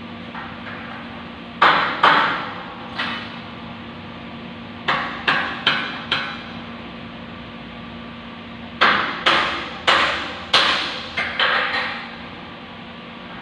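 Hammer blows on steel beams, about a dozen sharp metallic strikes in three bunches, each ringing briefly. A steady low hum runs underneath.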